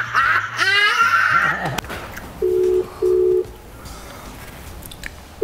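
Telephone ringback tone on speakerphone: a steady low double ring, two short pulses about a second apart, then a pause of about two seconds before the next double ring begins near the end. A voice is heard in the first second and a half, before the ringing starts.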